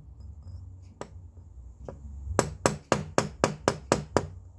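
Light taps of a small steel hammer on the side of a gold ring held against a steel bench block, knocking the bent ring level. A single tap about a second in, then a quick even run of about eight taps, roughly four a second.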